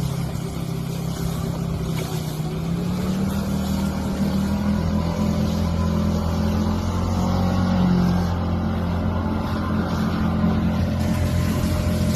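A boat motor running steadily, its pitch rising and its sound growing louder a few seconds in, as it picks up speed.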